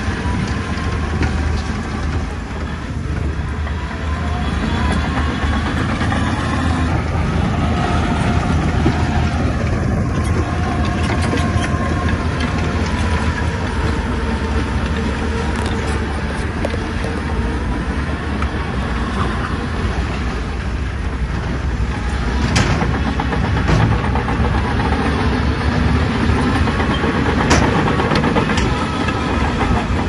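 Diesel engine of a heavy tracked bulldozer running steadily under load. Faint squealing tones drift up and down over the engine, and there are a couple of sharp metallic clanks later on.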